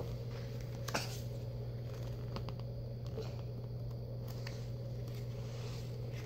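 Quiet room with a steady low hum, and faint rustles and clicks of a picture book's pages being handled, the sharpest click about a second in.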